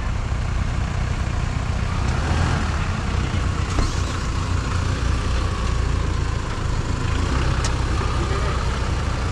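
Off-road 4x4's engine running with a steady low rumble under a broad rushing noise, with a couple of faint clicks.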